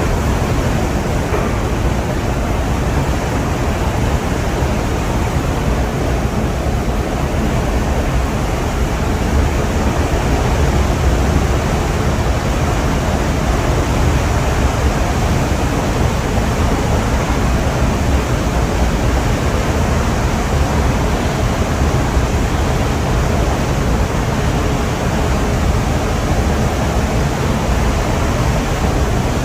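Steady rushing noise of wind and sea with a low rumble underneath, unbroken throughout.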